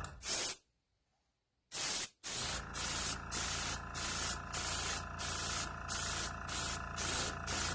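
Airbrush spraying Alclad II chrome paint in short repeated hissing bursts, about two or three a second, over a steady low hum. There is a brief burst at the start, then a second of silence before the run of bursts begins.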